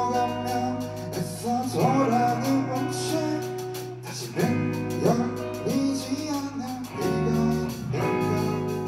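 Live rock band playing: electric guitars, bass guitar and drums, with melody notes swooping up into pitch.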